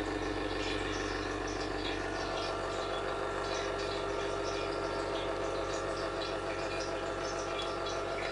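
Steady machine hum with several fixed tones, under faint small clicks and wet handling noises as a chicken drumstick is turned in flour and dipped in beaten egg.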